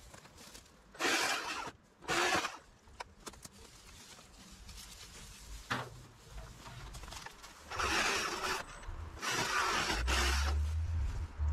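Four short bursts of scraping and rustling from hand garden clean-up work in plant debris: two close together about a second in, two more later on, with a low rumble near the end.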